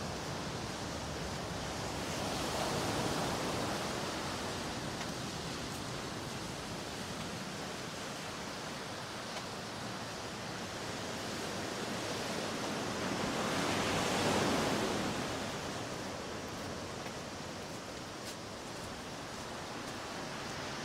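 Ocean surf washing onto the beach: a steady rush of noise that swells as a wave breaks about three seconds in and again, louder, about fourteen seconds in.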